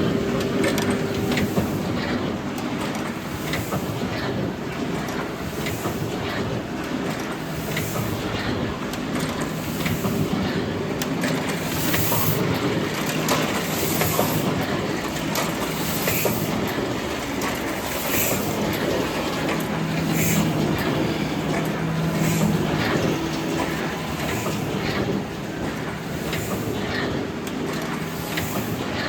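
Heidelberg SB cylinder die-cutting and creasing press running, a steady mechanical clatter that repeats its cycle about every two seconds.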